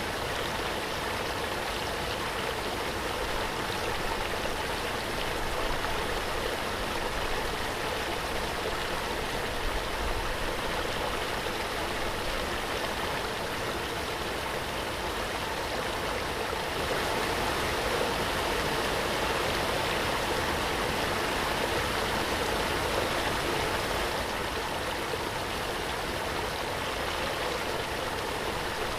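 Waterfall: a steady rush of falling water, a little louder for several seconds past the middle.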